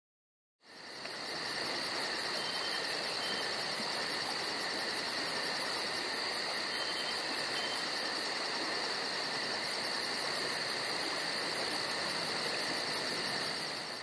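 Insects trilling in a steady high tone, with a fast, even pulsing chirp above it that drops out briefly just past halfway, over a soft hiss. It fades in near the start.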